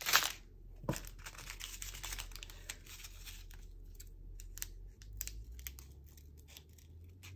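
Sticker labels being peeled off a sticker sheet and small plastic bags of diamond painting drills crinkling in the hands, with light clicks and rustles. There is a sharp crinkle at the start, then small handling sounds throughout.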